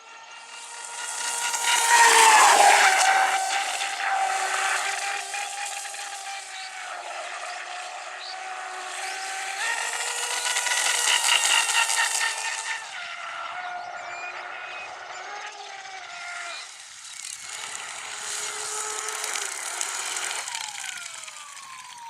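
Electric motor of a Tenshock F1 Formula RC racing boat whining at speed, with the hiss of water spray. It swells loud three times as the boat passes close, the whine dropping in pitch after each pass.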